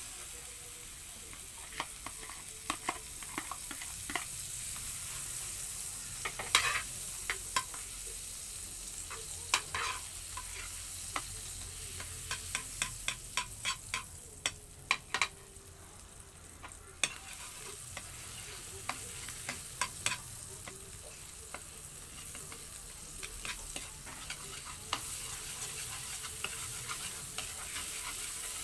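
Butter melting and sizzling in a metal wok, stirred with a metal ladle that clicks and scrapes against the pan again and again, most often around the middle.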